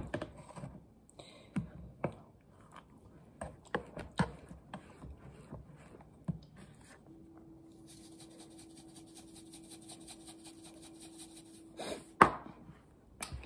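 Light taps and knocks of a seasoning container and utensil against a cooking pot as more seasoning is shaken into chili, then a faint steady hum for about five seconds and a single louder knock near the end.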